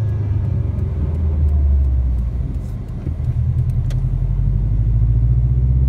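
Subaru WRX's turbocharged flat-four engine running at cruising speed, heard from inside the cabin as a steady low rumble. It dips briefly about halfway through, then picks up again.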